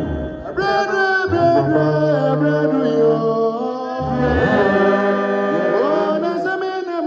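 Worship music: a voice singing in sliding, ornamented lines over held instrumental notes and a bass line.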